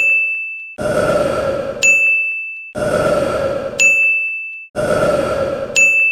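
A man burping, each burp about a second long, looped in a regular cycle with a bright ding sound effect ringing out after each one. There are three burps and their dings, about every two seconds.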